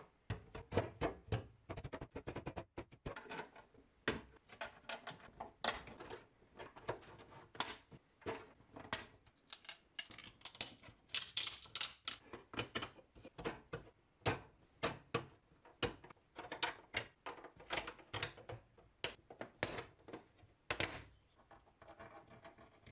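Hard 3D-printed plastic parts of a printer riser clicking, knocking and scraping together as they are handled and pressed into place, in many irregular taps.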